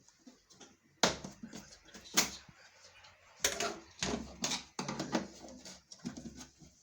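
Irregular sharp clicks and knocks of parts being handled and pried apart during work on a car light unit, the loudest about one and two seconds in.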